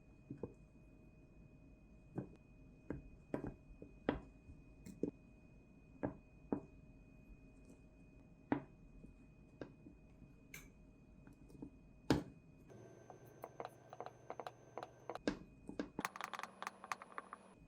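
Scattered light taps and knocks from hands working with kitchen utensils and dough, irregular at first and coming quicker and closer together over the last few seconds.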